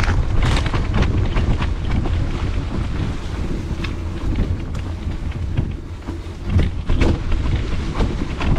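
Mountain bike ridden along a trail: wind buffeting the handlebar-mounted camera's microphone as a steady low rumble, with the bike rattling and knocking over bumps in scattered sharp clicks.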